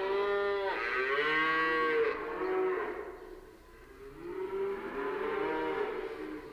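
Cow mooing: long drawn-out calls that rise and fall in pitch, with a short lull in the middle.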